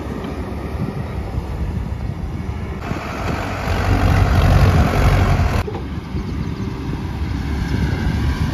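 Diesel engines of a Sonalika 750 tractor and a Sany excavator running. From about 3 s to nearly 6 s the loaded tractor drives close and its engine is louder, and the sound changes abruptly at each end of that stretch.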